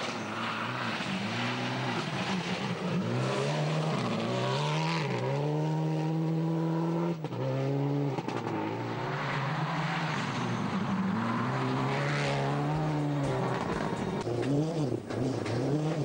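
Subaru Impreza STI rally car's turbocharged flat-four engine revving hard on a loose gravel stage, its pitch climbing through each gear and dropping at every shift, over a hiss of gravel and tyre noise.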